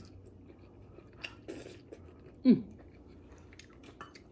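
A person chewing food, with small wet mouth clicks and smacks. About two and a half seconds in comes a short low hum that falls in pitch.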